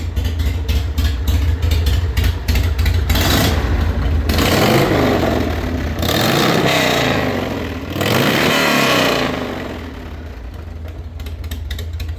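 Motorcycle engine with a freshly rebuilt Mikuni HSR42 pumper carburettor, idling with an even pulse, then revved up and let fall back several times about three seconds in, settling back to idle near the end.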